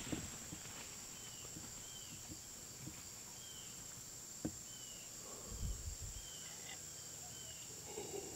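Insects droning steadily in a high, even tone, with a short falling chirp repeating every half second or so. There is a faint sharp click about four and a half seconds in and a brief low rumble a second later.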